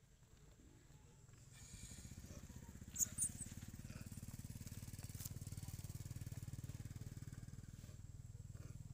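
Low, steady engine rumble, swelling in about a second and a half in, with two short high-pitched squeaks about three seconds in.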